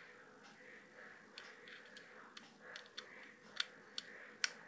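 Faint handling of a USB charging cable and plastic plug: a scattering of small, sharp clicks and light rubbing, the loudest two near the end.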